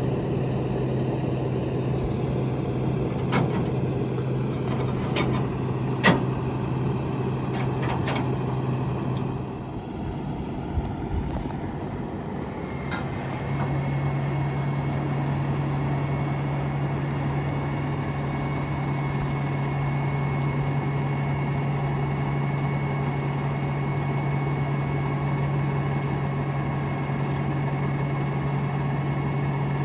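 Diesel engine of a flatbed delivery truck running steadily, with a few sharp clanks in the first several seconds. After a break about ten seconds in, the engine runs on and a steady high whine joins it as the truck's tilt bed raises the load of floor trusses to unload it.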